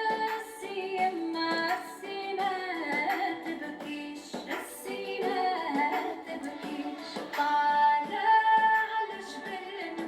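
Background music: a song with a woman singing a melodic line over light percussion.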